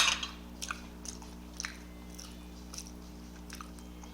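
A person eating close to the microphone: a louder bite right at the start, then chewing with scattered soft, wet mouth clicks, over a steady low hum.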